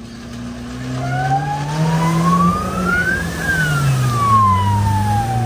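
A Suzuki 4x4 driven hard through deep flood water: the engine pulls under load and water rushes and sprays off the bow wave, growing louder about a second in. Over it a single whine rises steadily in pitch, peaks about halfway through and falls away again as the vehicle eases off.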